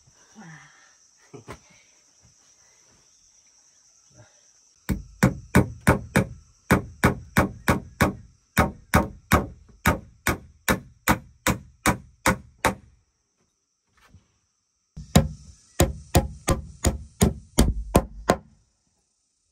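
A machete blade strikes and scrapes across rough-sawn wooden bed planks in quick repeated strokes, about three a second, shaving the board surface smooth. There are two runs of strokes with a short pause between them. A steady high insect drone sounds underneath.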